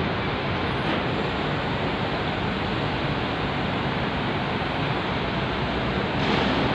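Steady rushing wind noise on the microphone high up on a silo tower, swelling slightly near the end.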